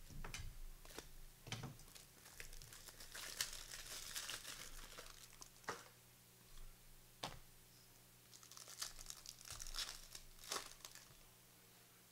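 Foil wrapper of a basketball trading-card pack being torn open and crinkled by hand, in two bouts a few seconds apart, with a few sharp clicks and snaps in between.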